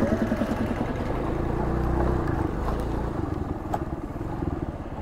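Motor scooter's engine running steadily as it rides along the road, easing a little in level near the end.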